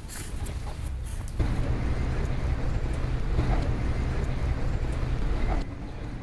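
A steady low rumble like road traffic, getting louder about a second and a half in and dropping back shortly before the end.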